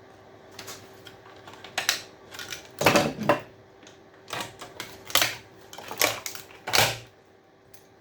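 Irregular clicks and knocks of hand tools and loose parts as an electrical appliance is pried apart for scrap, a cluster of sharper knocks about three seconds in being the loudest.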